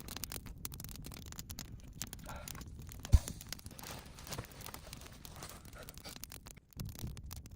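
Dry twigs, branches and leaf litter rustling and crackling as they are handled, with one dull, heavy thump about three seconds in.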